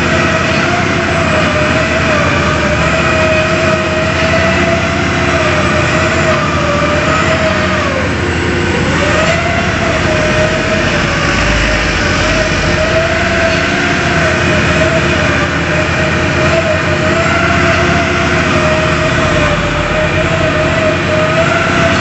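Heavy construction machinery running, the drilling rig and wheeled excavator on a bored-pile job: a steady diesel rumble under a whining tone that wavers slightly in pitch and dips briefly about eight seconds in.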